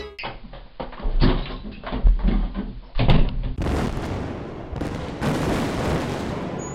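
Large explosion: a run of deep booms and crackling, then a steady roaring rush from about three and a half seconds in.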